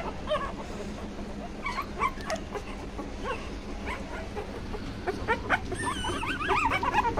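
A litter of very young pit bull puppies, eyes barely open, whimpering and squeaking. Short, high-pitched cries come scattered through and grow more frequent near the end.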